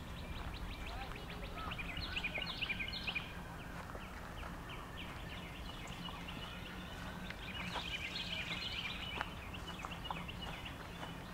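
Several songbirds chirping and singing in quick repeated notes, with busier flurries about two seconds in and again around eight seconds, over a low steady rumble.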